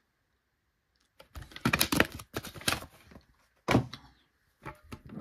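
Metal Match Attax mega tin being handled and its lid opened: after a moment of quiet, a run of knocks and scrapes, then a few more knocks.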